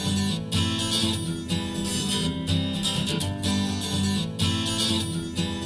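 Instrumental opening of an acoustic pop song: acoustic guitar strumming steady chords, with no vocals yet.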